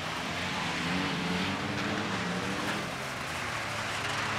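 Several front-wheel-drive skid cars racing, their engines revving up and down, over a steady hiss from their metal rear skid plates grinding along the pavement.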